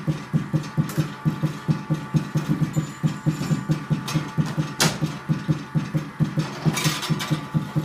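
Juggling balls bounced off a floor plate, landing in a quick, steady rhythm of low thuds, about four a second. A brief clatter comes about five seconds in, and a short rattle comes near the end.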